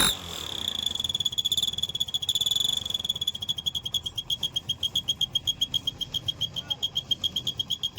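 Aftermarket turbo-whistle insert in an old motorcycle's exhaust silencer, whistling at a high pitch as the engine runs. The whistle is fairly steady at first, then pulses rapidly with the exhaust beats, about nine times a second. It is weaker than it should be because the old silencer is leaking.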